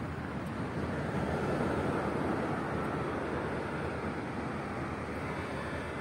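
Steady rushing noise of wind and surf on an open beach, swelling a little about two seconds in.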